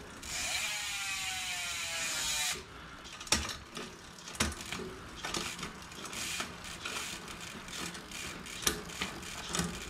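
Mountain bike drivetrain turned by hand in a work stand, with the chain running through freshly fitted Garbaruk 12T/16T pulley wheels and over the cassette. A loud ratcheting buzz runs for about two seconds and falls in pitch; after it come quieter chain noise and scattered sharp clicks as the rear derailleur's shifting is tested.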